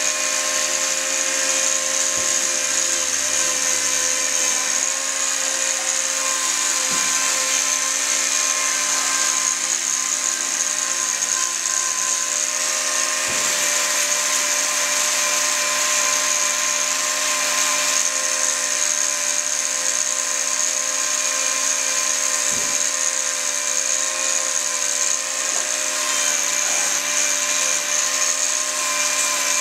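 Handheld angle grinder running steadily at constant speed with a high whine, its disc grinding down a cow's hoof claws during hoof trimming.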